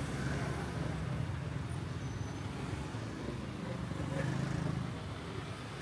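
Street traffic: a steady low drone of passing vehicles, swelling a little about four seconds in.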